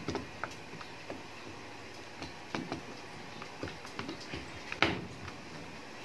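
Scattered light clicks and knocks of a washing machine's plastic water inlet valve being handled and turned against its housing and wiring, with the sharpest click about five seconds in.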